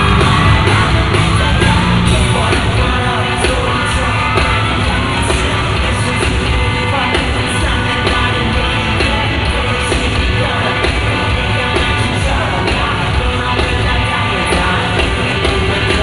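Live hip-hop/pop concert performance: a male vocalist singing into a handheld microphone over a loud backing track with a steady beat, the audience yelling along, heard from among the crowd in a large arena.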